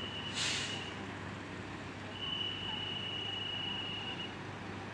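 Railway yard ambience: a steady low hum under a thin, steady high-pitched tone that stops and comes back twice. A brief hiss sounds about half a second in.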